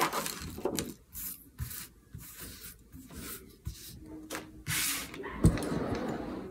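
Paper rustling and rubbing as small cut card-stock flowers are peeled off a sticky cutting mat and smoothed flat by hand, with a single sharp knock near the end.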